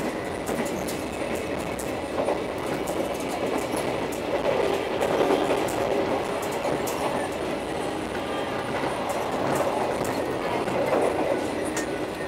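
Argo Parahyangan passenger train running at speed, heard from inside the coach: a steady noise of wheels on the rails with light scattered clicks, swelling a little twice.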